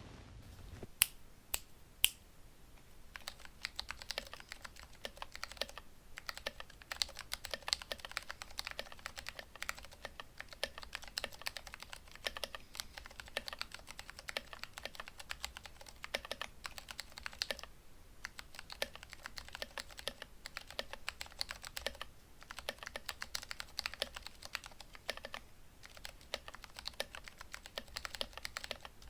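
Vortex ViBe mechanical keyboard with lubed Cherry MX Clear switches, 62 g springs and band-aid modded stabilizers being typed on, a dense, irregular run of keystrokes with a few short pauses. Two single sharper clicks come about one and two seconds in, and the steady typing starts about three seconds in.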